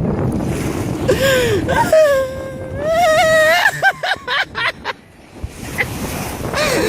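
Drawn-out wordless wailing and moaning from a person: a rising and falling cry about a second in, a long wavering held cry, then a few short broken sounds. Wind and wave noise runs underneath.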